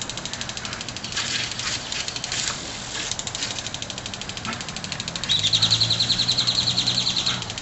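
Impact lawn sprinkler running on a garden hose, its arm ticking rapidly as it sprays. The ticking grows louder and closer about five seconds in.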